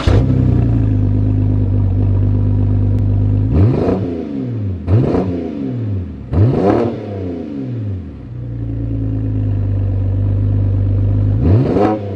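BMW 128i's N52 inline-six with a muffler delete idling, then revved hard four times, each rev climbing and falling back, in a stationary burnout attempt that throws up tyre smoke. Three revs come close together about a third of the way in, the fourth near the end.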